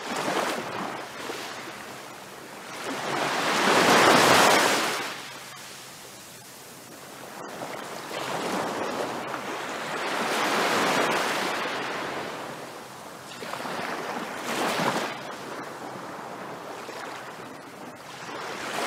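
Ocean surf breaking on a beach, swelling and fading in waves every few seconds, with the biggest swell about four seconds in.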